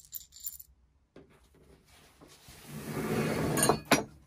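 Small metal screws and fittings of a plough plane clinking together in a hand. Then a longer handling and scraping noise builds up, loudest near the end, with two sharp knocks.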